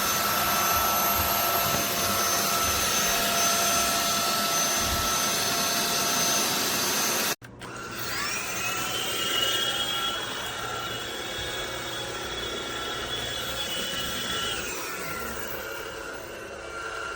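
AlloyMove A05 cordless stick vacuum running with a steady motor whine. After an abrupt cut about seven seconds in, it runs quieter: its whine rises in pitch, holds, and falls away again near the end.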